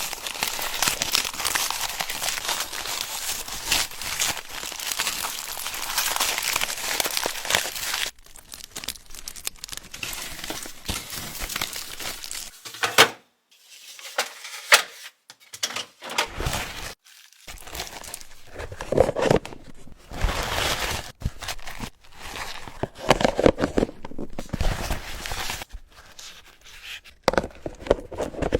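Close-up crinkling and rustling of plastic wrapping for about eight seconds, then scattered taps, clicks and dull thuds of objects being handled, with short pauses between them.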